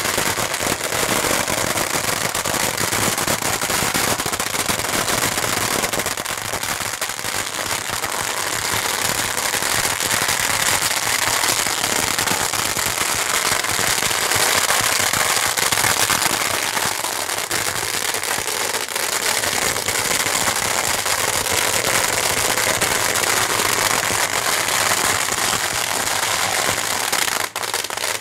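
Strings of firecrackers going off in a dense, continuous crackle of rapid reports, briefly dropping out near the end.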